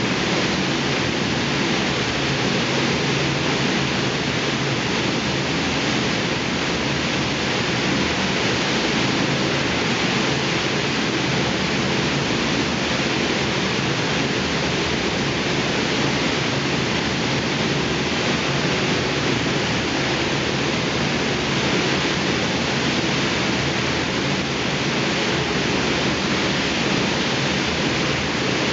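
Steady, loud rushing noise of a copper smelter's furnace hall, with a faint low hum underneath and no change in level throughout.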